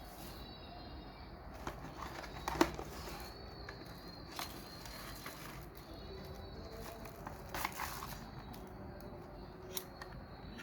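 Handling noise: a few scattered clicks and knocks over a low background, the sharpest about two and a half seconds in, with two smaller ones near the end.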